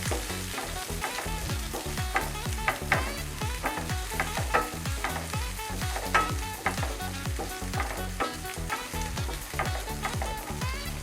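Chopped onions and garlic sizzling in hot oil in a pan, with a spatula stirring and scraping in irregular clicks, over background music with a steady beat.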